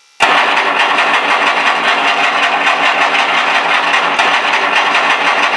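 A deep, cannon-like machine-gun sound effect from an RC sound module, played through the speakers built into a model P-51 Mustang. It starts suddenly just after the start as a rapid, steady string of shots.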